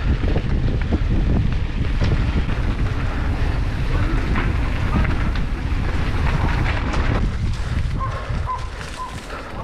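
Wind buffeting the microphone of a mountain bike rider coasting downhill, a loud rumble that eases off about seven seconds in. Near the end come three short, evenly spaced high beeps.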